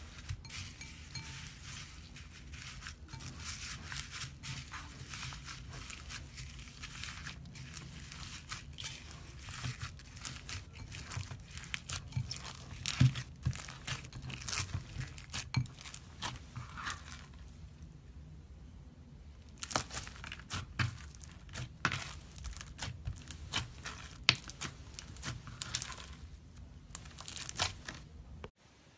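Green slime packed with small foam beads being kneaded and squeezed by hand: dense crackling and crunching of the beads, with sharper pops and clicks scattered through.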